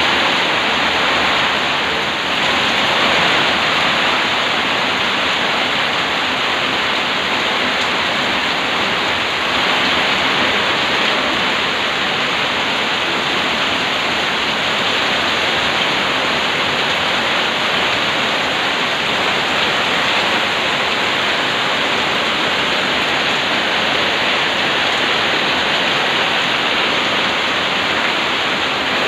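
Heavy, steady typhoon downpour falling on corrugated metal roofs and pouring off their edges.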